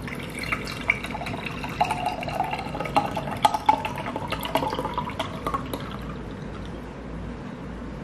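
Carbonated orange soda poured from a can into a glass tumbler: liquid splashing and fizzing, with crackling bubble pops, and the pitch of the fill rising as the glass fills.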